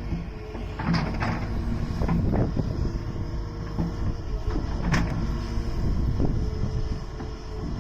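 Hydraulic excavator's diesel engine running steadily with a faint steady tone over it, broken by several sharp knocks from the machine working, the loudest about five seconds in.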